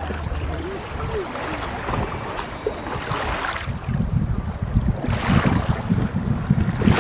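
Shallow sea water lapping and splashing, with wind rumbling on the microphone, stronger in the second half.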